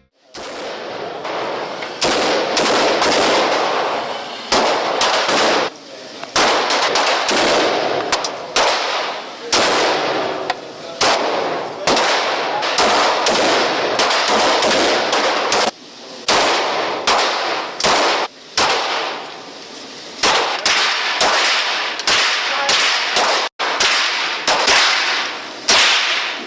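Firearms being shot on a shooting range: many sharp gunshots throughout, at an uneven pace, sometimes several in quick succession, each followed by an echoing tail.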